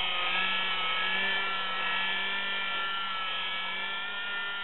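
Electric orbital buffer with a foam pad running at steady speed, spreading wax over car paint: a steady motor whine that eases slightly in level toward the end.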